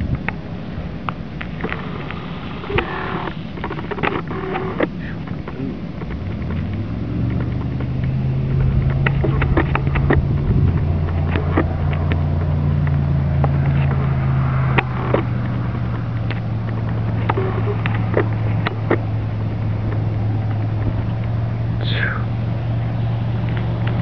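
A motor vehicle engine idling: a steady low hum that sets in about six seconds in and holds. Scattered sharp clicks sound throughout, and a short falling chirp comes near the end.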